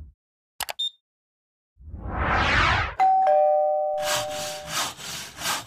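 Animation sound effects: a brief click, then a whoosh, then a two-note falling chime like a doorbell, followed by a scratchy rubbing noise in several short strokes.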